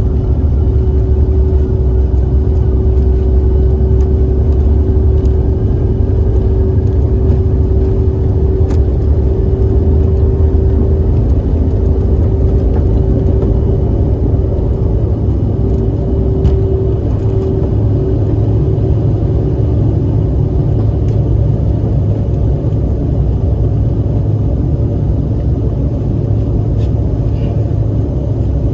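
Cabin noise of a CRJ-900ER regional jet during takeoff: its rear-mounted GE CF34 turbofans at high power under a loud, steady rumble. A steady hum rides on top and fades out about two-thirds of the way through.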